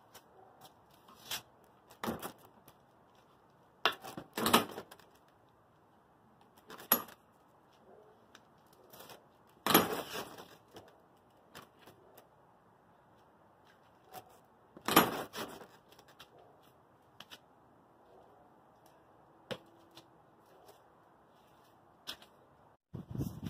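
Metal gate latch clicking and clacking as a vinyl fence gate is worked open and shut, in scattered knocks with two louder ones about five seconds apart.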